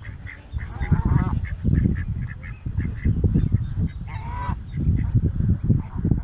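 Waterfowl calling: two drawn-out honking calls, about a second in and again about four seconds in, over a quick run of short high chirps. A low rumble on the microphone is the loudest thing throughout.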